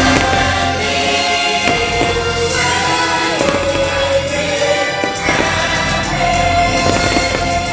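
Fireworks show soundtrack: a choir singing over orchestral music, loud and sustained, with several fireworks bangs cutting through it.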